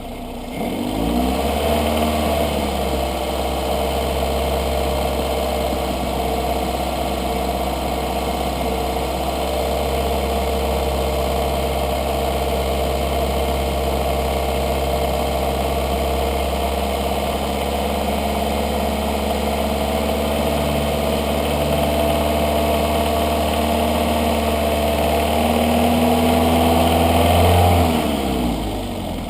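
2003 Toyota Corolla's four-cylinder engine revved up about a second in and held at a raised, steady speed, then dropping back to idle near the end, while SeaFoam is drawn in through the throttle body to clear a rough idle.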